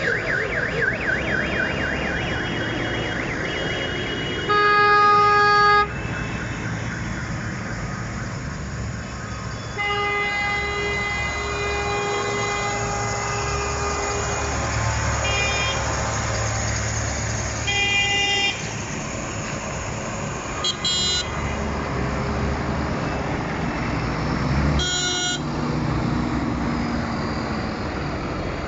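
Convoy of farm tractors driving past with diesel engines running, and repeated horn blasts over it. A warbling, siren-like tone sounds in the first few seconds, the loudest horn blast comes about five seconds in, a longer one runs from about ten to fourteen seconds, and shorter toots follow.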